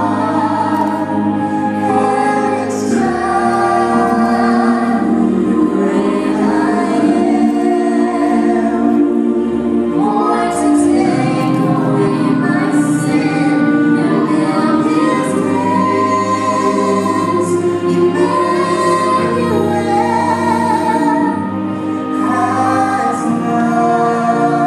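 Vocal music: a female voice singing over sustained accompaniment, other voices joining in.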